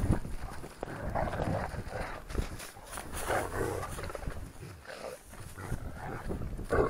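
Livestock guardian dogs snarling and growling as they play-fight, in short rough bouts about once a second, over a low rumble.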